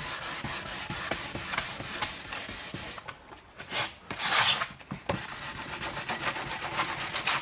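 800-grit wet-sanding paper on a sanding block being rubbed back and forth over a carbon fiber part, a quick run of scratchy strokes. It eases off briefly about three seconds in, then picks up again with a louder stretch.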